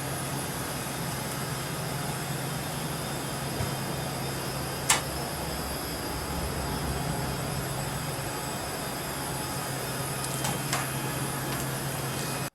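Steady hum and hiss of the International Space Station's cabin ventilation fans and equipment, heard inside a module. A sharp click comes about five seconds in, and a couple of faint clicks near the end.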